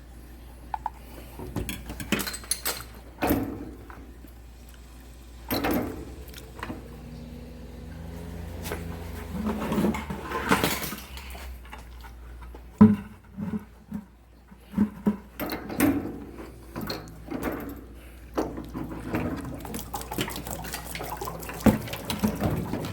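Water running and splashing out of a water heater fitting being worked on, mixed with repeated clanks and knocks of metal fittings and tools.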